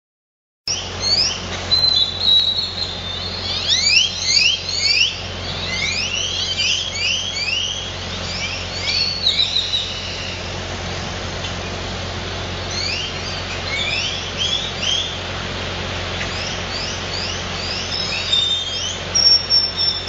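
Birds chirping and calling, many short high chirps that rise and fall in pitch, thickest in the first half and again near the end, over a steady low background rumble.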